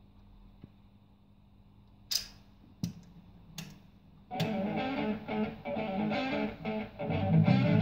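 Bush SRG 110 radiogram with a faint steady hum, then the stylus dropping onto the vinyl record with three sharp clicks in the lead-in groove. About four seconds in, electric-guitar rock music starts playing from the record through the radiogram's speaker.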